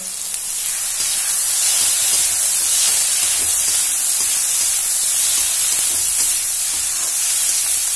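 Chopped onions, tomatoes and spices sizzling in hot oil in a metal kadhai, a steady hiss, while being stirred and tossed with a slotted metal spoon.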